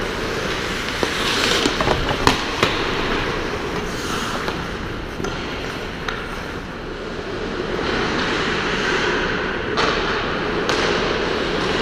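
Ice hockey skates scraping and carving on the rink ice over a steady background of rink noise, with sharp clacks of sticks and puck a couple of seconds in and again near the end.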